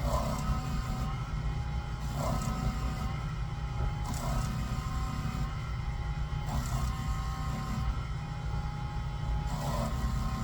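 Typhoon shear-sharpening machine running with a steady motor hum, while a shear blade is worked across the spinning hone in repeated passes, each a short scraping hiss about every two seconds.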